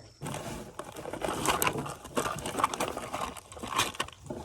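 Rummaging through a fishing tackle box: small irregular clicks, clatters and crinkling of lure packets as tackle is sorted by hand.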